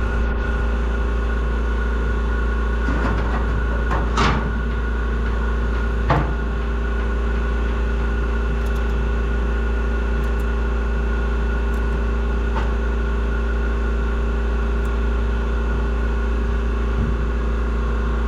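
Steady mechanical hum with several constant tones, with a few short knocks about 3, 4 and 6 seconds in.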